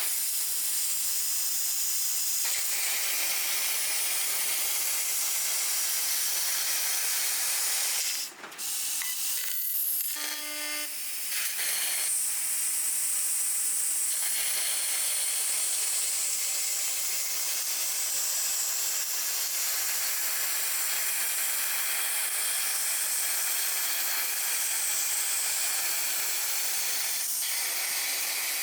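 A 6 kW fiber laser cutting machine cutting thick carbon steel plate: a loud, steady hiss of the cutting jet, broken briefly about eight seconds in and changing for a couple of seconds soon after before the hiss resumes.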